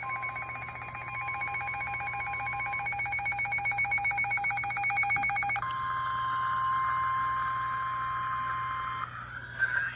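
Emergency alert tones ahead of a severe thunderstorm warning broadcast. For about five and a half seconds a rapidly pulsing electronic alarm of several tones sounds. It is followed by a single steady tone over radio hiss, the weather radio warning alarm tone, which cuts off about nine seconds in.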